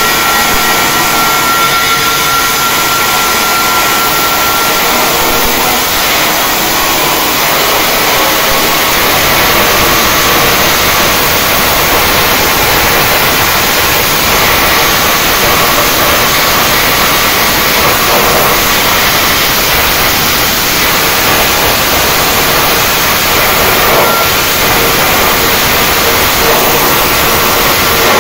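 Flux-cored arc welding: the arc burns continuously on steel with a loud, steady crackling hiss.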